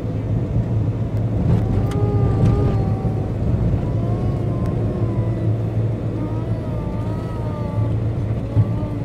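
Van's engine and tyre noise heard inside the cabin while driving: a steady low drone. There is one short knock near the end.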